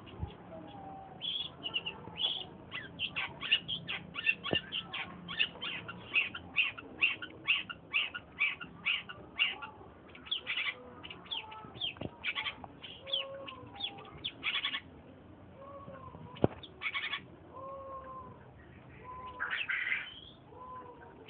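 Long-tailed shrike (cendet) calling: a long rapid run of short, sharp high notes, about three a second, then scattered calls and a short dense burst near the end. Fainter, lower slurred whistles and a few sharp clicks sound underneath.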